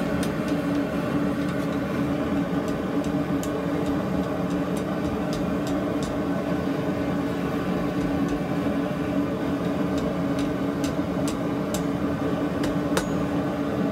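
Steady humming drone of the running forge, with light, scattered hammer taps on hot steel at the anvil and one sharper tap near the end.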